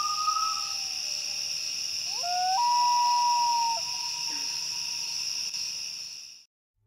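Common loons wailing: long, held, whistled notes that jump up in pitch, two voices overlapping, over a steady high-pitched insect chorus. The sound fades out near the end.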